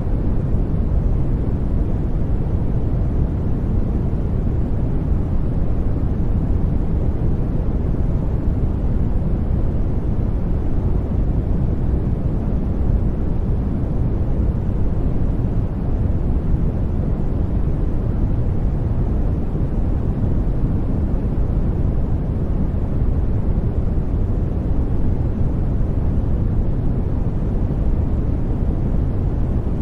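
Steady generated noise for sleep, a deep even rumble weighted toward low pitches with little hiss above it.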